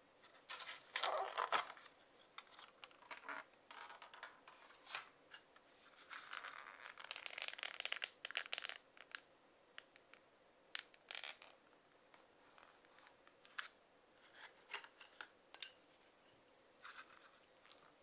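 Thin clear plastic film lid of a microwave ramen bowl being handled and peeled off, giving bursts of crinkling and crackling, densest about six to nine seconds in. Later come sparse light clicks and taps as the bare bowl and wooden chopsticks are handled.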